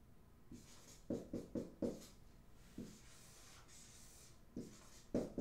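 Dry-erase marker writing on a whiteboard: a quick run of four short strokes about a second in, a single stroke near the middle, and more strokes starting again near the end.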